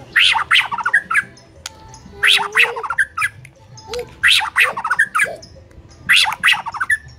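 White-rumped shama (murai batu) singing in loud, fast runs of notes, four phrases about two seconds apart.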